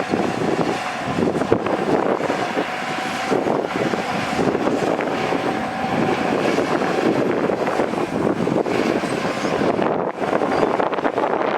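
Diesel engines of heavy earthmoving machinery, bulldozer and dump trucks, running continuously with a rough, dense clatter.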